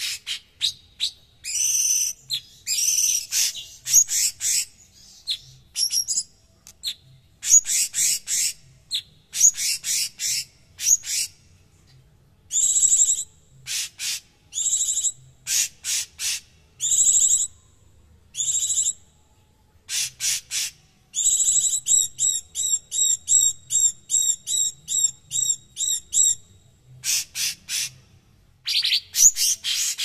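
Orange-bellied leafbird (cucak cungkok) singing in harsh, dense bursts of rapid high chattering notes with short pauses between them. In the second half it gives a fast run of repeated notes, about three a second.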